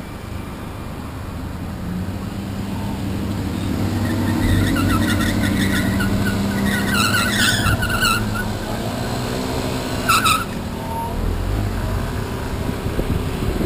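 A scooter running while ridden in street traffic, engine and road noise growing louder over the first few seconds. A few short, high-pitched pitched sounds stand out near the middle.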